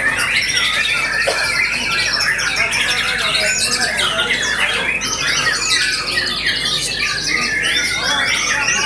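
White-rumped shamas (murai batu) singing over one another in a dense, unbroken chorus of fast whistles, trills and chattering phrases.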